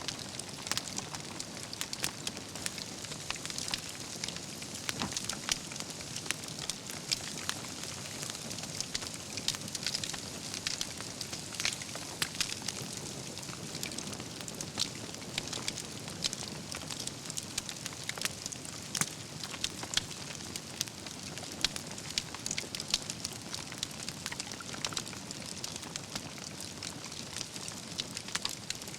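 Campfire of burning wood logs crackling steadily, with frequent sharp pops and snaps over a soft hiss.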